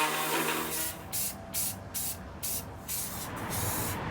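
Spray paint being applied to sheet steel in a series of short hissing bursts, several a second, with brief gaps between them.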